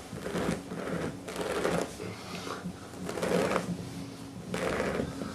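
Carpet 'cookie cutter' patch tool being twisted back and forth, its blade rasping through carpet backing and pile in about four strokes roughly a second apart.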